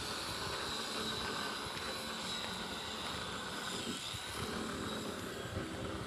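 Steady distant engine drone, even throughout.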